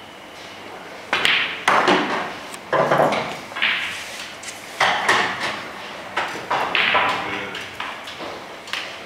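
Pool balls on a blackball table. About a second in, a cue strikes the cue ball and the yellow is potted, followed by a string of sharp knocks and clacks of balls, about one a second, each ringing off briefly.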